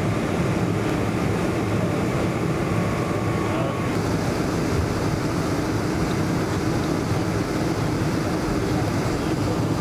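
Steady drone inside a Boeing 747's cabin: engine hum and airflow noise at an even level, with a faint murmur of voices.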